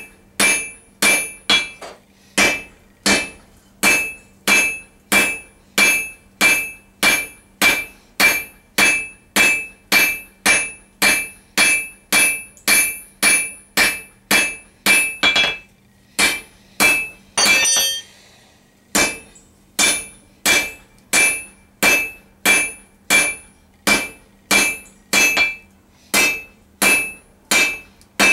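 Hand hammer striking red-hot steel bar stock, drawing it out to a taper: steady blows about two and a half a second, each with a bright metallic ring. A pause of about three seconds past the middle, broken by a short clatter of metal.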